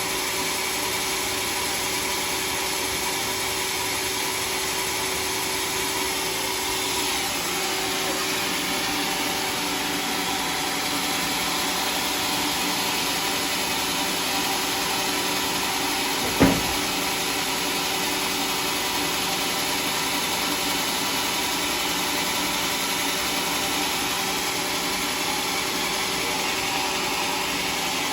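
Home-built sawmill with a circular saw blade running steadily, with a single sharp knock a little past halfway through.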